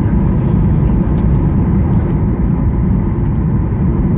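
Cabin noise inside a Boeing 737 MAX on approach to landing: a steady, loud low rumble of engines and rushing air, with a faint steady hum above it.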